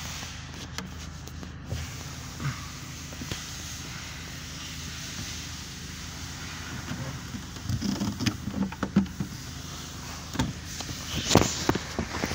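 Steady background hiss, then from about halfway a run of sharp clicks and knocks, loudest near the end, from hands and tools working on loosened dashboard trim.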